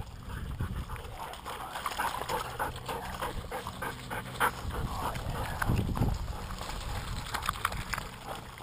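Sled dogs moving about close by, with dog sounds and paws splashing through shallow water and mud, and a few dull low bumps.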